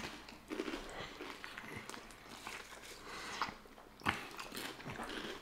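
Close-miked eating: soft wet chewing of a chili cheese sausage dog and crisp crunches of potato chips being bitten, with the sharpest crunch about four seconds in.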